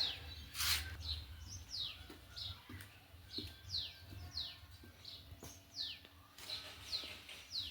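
Small birds chirping: a run of short, high chirps, each falling in pitch, about one or two a second, with a brief noisy burst about a second in.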